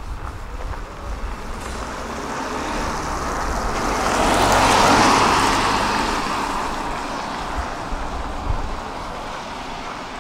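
A vehicle passing by: its tyre and road noise swells to a peak about five seconds in, then fades away.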